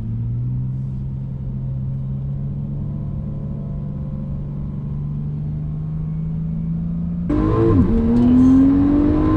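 Porsche 911 Turbo's twin-turbo flat-six heard from inside the cabin, droning with a slowly rising pitch under light throttle, then about seven seconds in suddenly much louder as the car is put under hard acceleration, the pitch climbing with a brief dip near the end.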